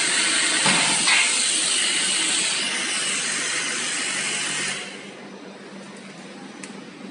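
Loud, steady hissing rush of water escaping under pressure from a PVC layflat hose in a burst test, with a couple of small knocks about a second in. It cuts off abruptly about five seconds in, leaving a faint hiss.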